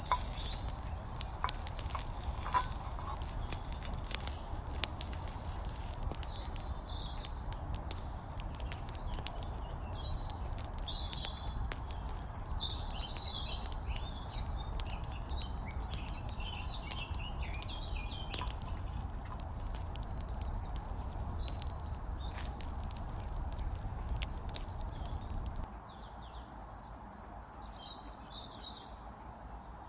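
Birds chirping and tweeting over a steady low rumble, with scattered small crackles from the tiny wood fire under the miniature pan. The rumble and crackles stop abruptly about 26 seconds in, leaving the birdsong.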